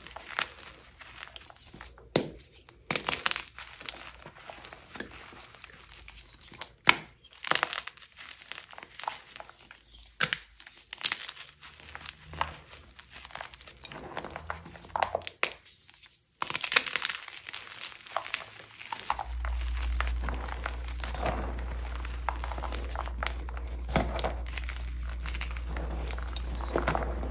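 Soft dyed gym chalk blocks crushed and crumbled by hand into a bowl of chalk crumbs and powder: a run of crunches and crackles with a few sharper snaps. A low steady hum comes in about two-thirds of the way through.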